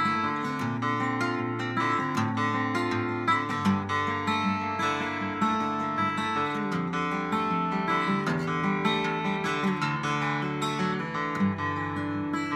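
Solo acoustic guitar played fingerstyle in D-A-D-E-A-E tuning: quick plucked melody notes over ringing low bass notes.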